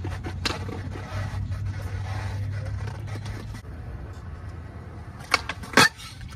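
Skateboard wheels rolling on concrete with a steady low rumble, then two sharp clacks about half a second apart near the end: the board popped for a trick and coming back down.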